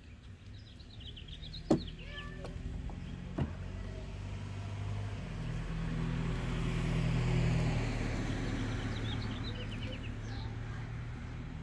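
A car driving past, its engine hum and tyre rush swelling to a peak about seven seconds in and then fading. Two sharp knocks about a second and a half apart come early, and birds chirp faintly.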